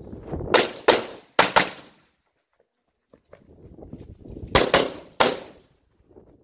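Pistol shots in a rapid string: four quick shots in the first second and a half, then, after a break, three more about four and a half seconds in. Each shot has a short echo.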